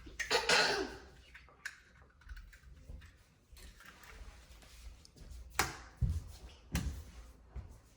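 Eggs being cracked and opened into a bowl: scattered sharp taps and clicks, with two loud knocks about a second apart near the end.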